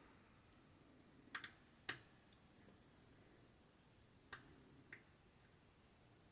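Small sharp clicks of a lock pick and tension wrench working in an Ikon N1 lock cylinder with a paracentric keyway: two quick clicks about a second and a half in, another just after, and two fainter ones later.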